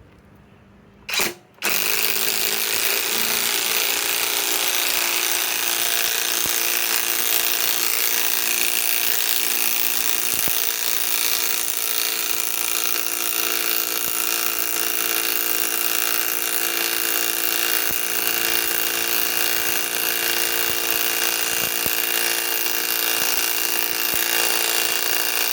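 Kobalt cordless right-angle impact wrench hammering without a break for over twenty seconds as it drives a 5-inch lag screw, after a brief trigger blip about a second in.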